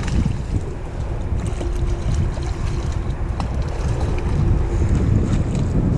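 Heavy wind rumble on the microphone, with a hooked chub splashing at the surface close to the bank.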